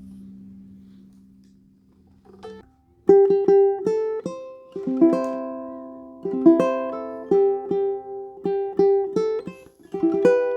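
Tenor ukulele being fingerpicked: a low chord rings out and fades over the first couple of seconds, then a melody of plucked single notes and double-stops starts about three seconds in, each note ringing briefly.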